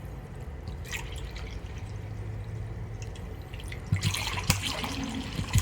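Fermented juice dripping through a cloth towel into a pot. About four seconds in it turns to louder splashing, with a few sharp clicks.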